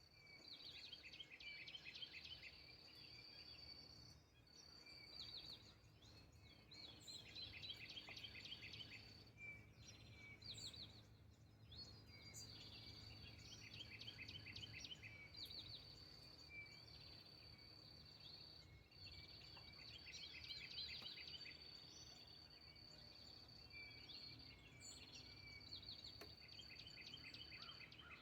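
Faint birdsong: birds singing repeated short, rapid trilled phrases every few seconds over a steady high-pitched tone and a low rumble.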